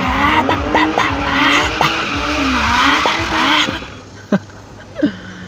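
A man imitating a drifting car with his mouth: a wavering engine-like drone mixed with hissing tyre-squeal noises, which stops about two thirds of the way in, followed by two short clicks.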